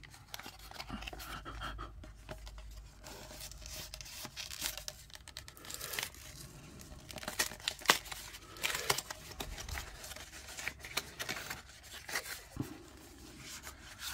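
Small cardboard Match Attax trading-card box being torn open and handled: irregular tearing, crinkling and rustling as the flaps are pulled apart and the cards slid out, with one sharper tear about eight seconds in.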